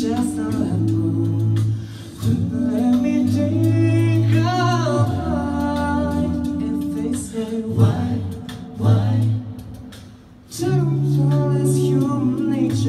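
A cappella vocal group singing a wordless passage: a sung bass line and held chord harmonies, with a lead voice gliding up and down about four seconds in. Vocal percussion keeps sharp beats throughout. The sound thins out and fades just before the full chord comes back near the end.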